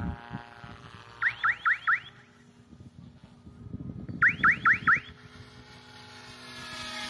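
Faint steady whine of a Goblin 380 electric RC helicopter in flight, with a loud set of four quick rising chirps repeating about every three seconds.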